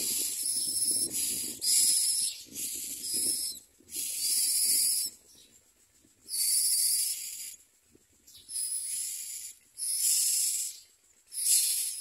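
Common myna nestlings giving harsh, hissing begging calls in a string of bursts, each lasting about a second, with short pauses between them.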